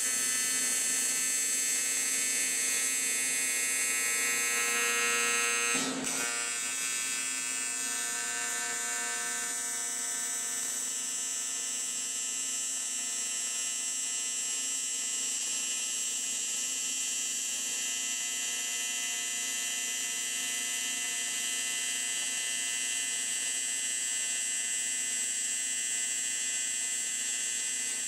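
AC TIG welding arc on aluminum from an inverter TIG machine, at about 148 amps under foot-pedal control: a steady buzzing hum with many evenly spaced tones and a high hiss. A brief click comes about six seconds in, after which the buzz is slightly quieter.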